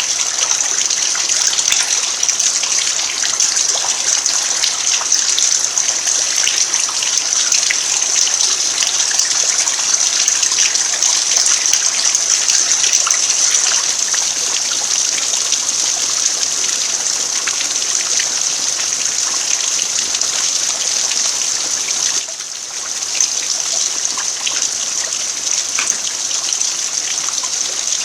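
Steady rain falling on an earthen farmyard: a dense, even patter of countless drops. It goes briefly softer about 22 seconds in.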